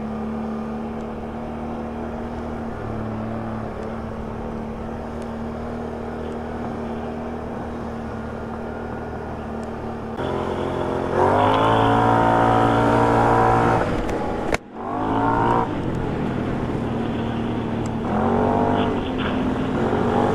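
A Can-Am ATV's V-twin engine runs at low, steady revs for about ten seconds, then revs up hard under throttle, its pitch climbing. About two-thirds of the way through the sound cuts out for an instant, and it rises again twice more near the end.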